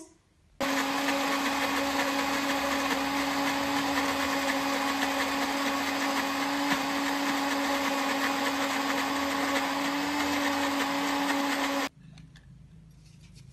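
Philips countertop blender motor switched on, running at one steady pitch as it blends eggs, grated cheese, margarine and salt into a smooth batter, then cut off abruptly near the end.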